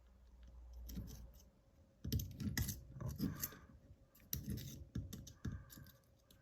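Irregular clicks and scratches of hands handling steel Darby handcuffs while poking a piece of string into them, busier from about two seconds in.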